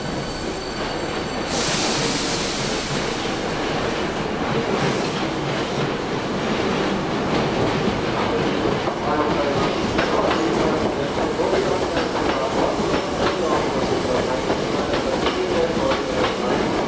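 Hankyu 8300-series commuter train pulling in and stopping at a platform, with a sharp hiss of compressed air about a second and a half in and a shorter one a few seconds later. From about halfway through, a dense crowd of passengers boards through the open doors: shuffling footsteps, clicks and a murmur of voices over the train's hum.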